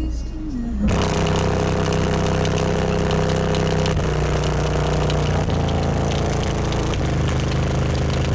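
SQ HDC4 12-inch car-audio subwoofer with a folded, structurally ruined cone being driven hard to destruction, playing loud bass notes that step to a new pitch every second or so under a harsh buzz.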